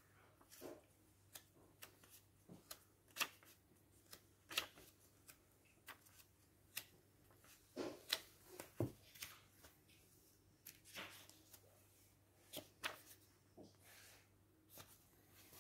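Pages of a small paperback puzzle book being leafed through by hand: an irregular run of short, papery rustles and flicks.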